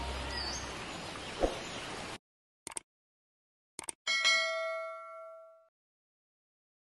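Outro music tailing off and cutting out, then two short clicks and a bright bell ding, the notification-bell sound effect of a subscribe-button animation, ringing out for about a second and a half.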